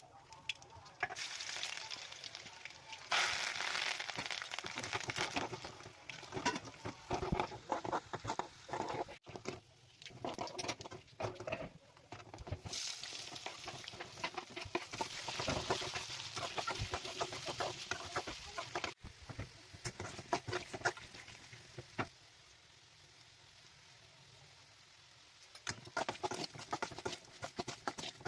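Potatoes frying in hot oil with a spice tempering, sizzling and crackling with many small pops, and a spatula stirring and scraping in the pan. The sound comes in several short cuts, one stretch near the end much quieter and steadier.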